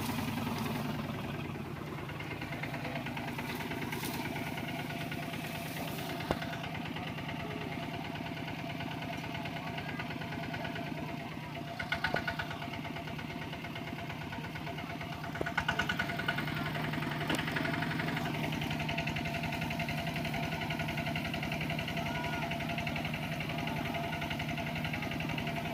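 A Kubota RT120 single-cylinder diesel engine on a two-wheel walking tractor runs steadily with a fast, even chugging as it works under load in mud. There are brief clattering bursts about twelve and sixteen seconds in.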